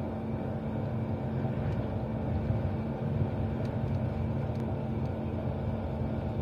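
Steady running noise inside a moving passenger train: an even rumble with a steady low hum and a few faint ticks.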